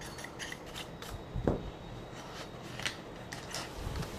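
Light handling noise as a TV power-supply circuit board is moved about on a table: scattered soft clicks and rustles, with one dull thump about a second and a half in.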